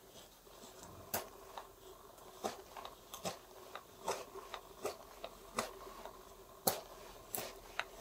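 Schrade F57 neck knife, with a freshly ground convex edge, slicing shavings from a wooden spoon blank: a crisp snick with each cut, irregular, about two a second, the sharpest one near the end.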